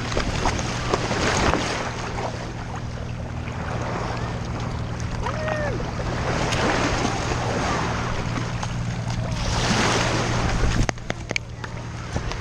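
Surf and wind rushing over a GoPro camera worn on a dog's back, swelling and easing in waves, over a steady low hum. A few sharp clicks come just before the end.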